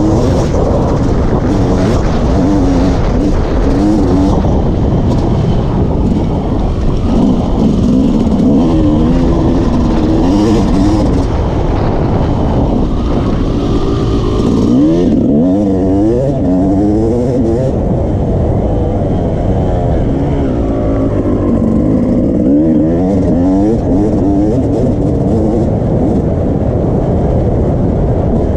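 Yamaha YZ250 two-stroke dirt bike engine under hard riding, its revs rising and falling again and again as the rider works the throttle through the gears, heard close-up from a camera mounted on the bike over a steady loud rumble.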